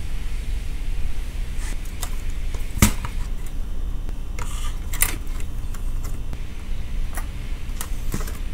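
Small clicks and taps from handling a car radio unit and its tiny parts, several light knocks, with the sharpest about three seconds in and another about five seconds in, over a steady low hum.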